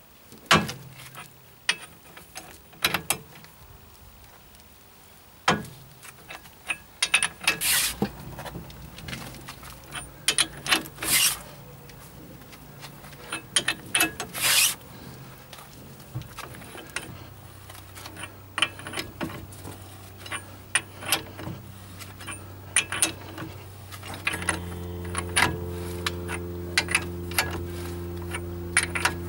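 A wrench or ratchet clicking and metal tools clinking as the threaded extractor of a wheel bearing tool set is screwed down to pull the bearing out of the hub carrier. A low steady hum of unknown source starts faintly partway through and gets louder near the end.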